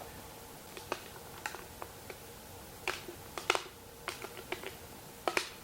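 A metal can being tapped: a string of irregular, sharp taps and clicks, loudest about three and a half seconds in and again near the end.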